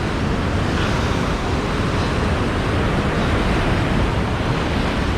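Ocean surf washing steadily against a rocky shoreline, with wind rumbling on the microphone.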